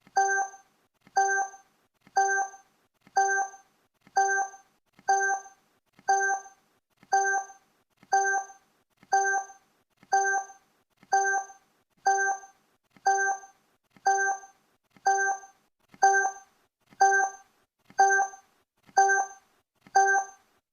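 Countdown timer's tick sound effect: a short, pitched tick once a second, about twenty in a row, evenly spaced.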